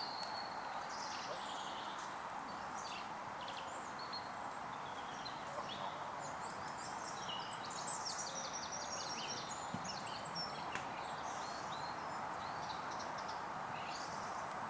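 Several small birds singing and calling, with quick chirps and trills that are busiest in the middle, over a steady background hiss.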